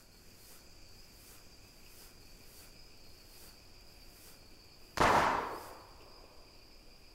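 Insects chirping steadily in an even pulse. About five seconds in, a single loud gunshot cracks and dies away in a short echo.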